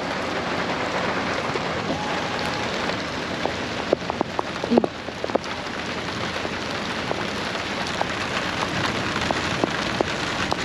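Steady heavy rain during a thunderstorm, with many sharp ticks of drops striking close by, most of them about four to five seconds in.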